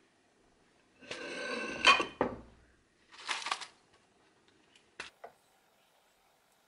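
Broken eggshells crackling and a cardboard egg carton rustling as they are handled: a loud crackly rustle of about two seconds with two sharp clicks in it, a shorter rustle a second later, then a couple of light clicks.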